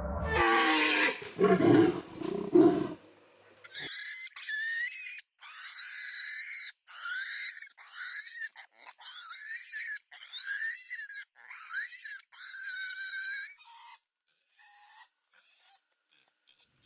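Wild animal sounds: a loud, deep roar for the first few seconds, then a run of short, high calls that bend in pitch, one after another, fading out near the end.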